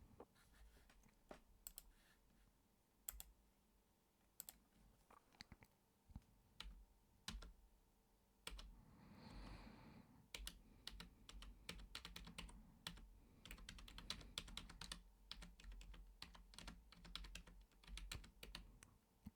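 Faint typing on a computer keyboard: irregular runs of keystroke clicks, with one soft breath about halfway through.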